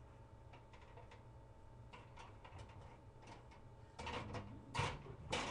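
A small fingerboard rail being handled and worked with wax over a gas stove burner. There are faint scattered ticks and clicks, then a few louder scrapes and knocks in the last second and a half.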